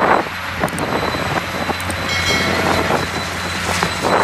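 Caterpillar 385C hydraulic excavator's diesel engine running steadily as it digs and swings, with scattered knocks from the bucket working the dirt.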